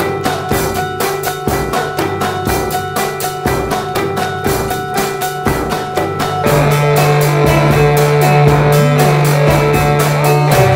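Rock music with a steady drum-kit beat and guitar. About six and a half seconds in, the band gets fuller and louder over a held low note.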